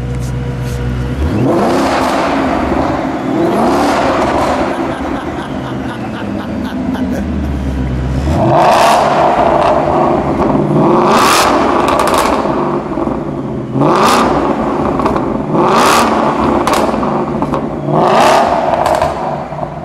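2016 Shelby Terlingua Mustang's Whipple-supercharged V8 idling, then revved hard about seven times in a row, the engine note rising and falling with each blip of the throttle.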